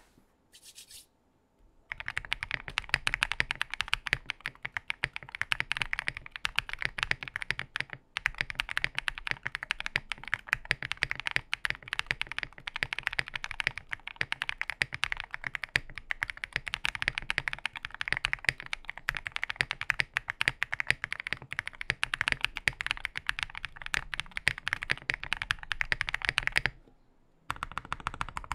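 Fast, continuous typing on a Mr. Suit mechanical keyboard with stock Prevail Epsilon linear switches and XMI keycaps, giving loud, thocky keystrokes. The typing starts about two seconds in, breaks off briefly near eight seconds and again near the end, then resumes.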